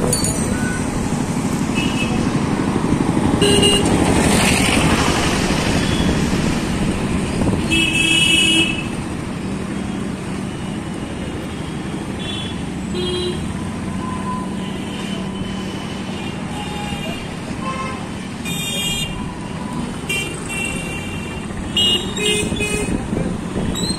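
Busy street traffic with vehicle horns honking in short bursts again and again over steady road noise. The road noise is louder for roughly the first nine seconds, then drops.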